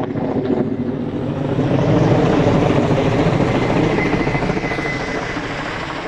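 Firefighting helicopter carrying a slung water bucket flying over, its rotor noise growing to a peak about two seconds in and then fading away.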